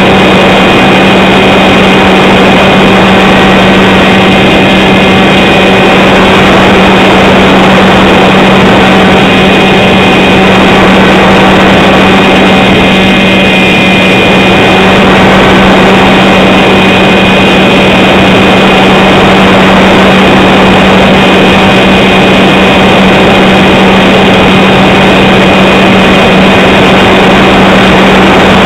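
Steady, very loud hum and whine of a model aircraft's motor and propeller in flight, picked up by a camera mounted on the aircraft itself.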